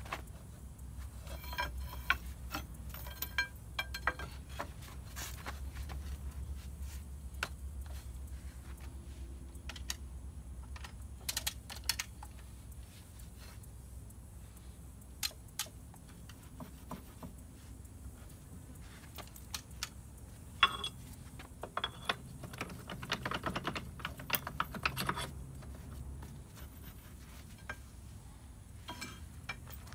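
Light metallic clicks and clinks of steel hand tools against the excavator's steel track links and chain as the links are worked into line, scattered throughout, with a quick run of clicks a little past two-thirds through.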